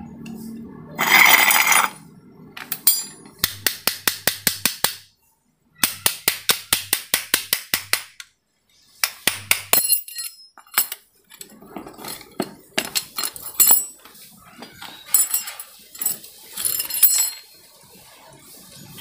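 Metal parts of a scooter's CVT clutch assembly being worked by hand: a loud harsh rasp about a second in, then two runs of rapid sharp metallic clicks at about seven a second, followed by scattered clinks and knocks as the clutch carrier and shoes are handled.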